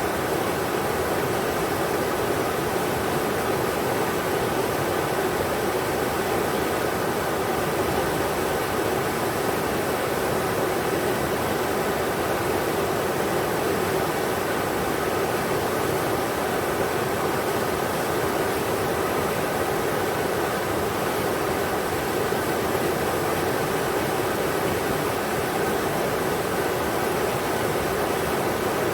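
River water rushing steadily over rocks: a constant, even rush with most of its strength in the middle and lower range.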